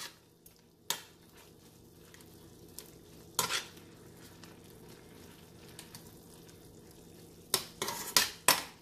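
A spoon scraping and knocking against a stainless steel pan as chicken pieces are stirred in their cooking liquid: one stroke about a second in, another mid-way, and a quick run of several near the end, over a faint steady sizzle.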